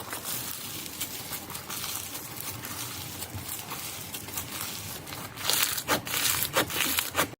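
Slime being squeezed and pressed in the hands: a steady crinkly crackling, growing into louder, sharper crackles and pops over the last two seconds.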